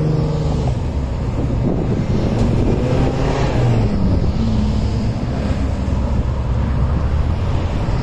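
A car engine's note fading away in the first second, then wind rumbling on the microphone with faint engine sounds beneath it.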